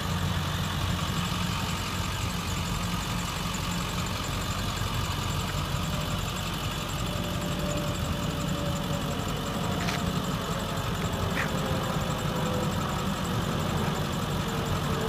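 Ford 7.3-litre Power Stroke turbo-diesel V8 idling steadily.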